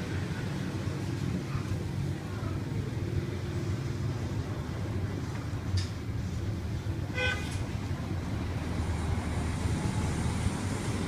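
Steady road-traffic rumble, with one short vehicle horn toot about seven seconds in.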